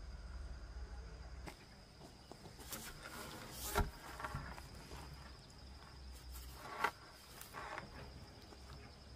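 Insects trilling steadily on one high note, with a few scattered knocks and rustles of handling, the sharpest about four and seven seconds in.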